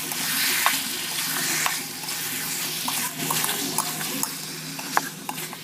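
Chicken curry sizzling in a kadhai as a metal spoon stirs it, the spoon clicking against the pan now and then.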